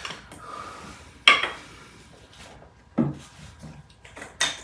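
A few sharp clicks and clacks of hard camera gear being handled during setup, a mirrorless camera body and lens. There are three main ones about a second and a half apart, the loudest about a second in, with fainter rustling between.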